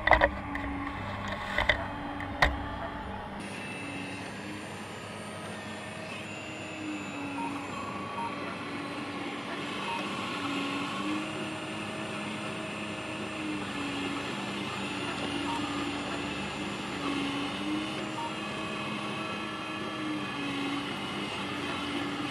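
Hydraulic pump of a 1:8 scale RC Caterpillar 390D model excavator running with a steady whine that dips slightly in pitch every second or two as the boom, arm and bucket are worked. A few sharp knocks come in the first three seconds.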